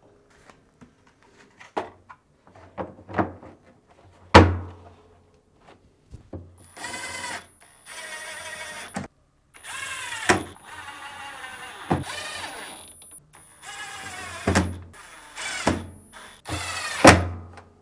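Hard plastic clicks and knocks as the washer's tub cover is pressed into place, then a Milwaukee cordless drill running in about five short bursts, driving the tub cover's screws, with sharp knocks between the runs.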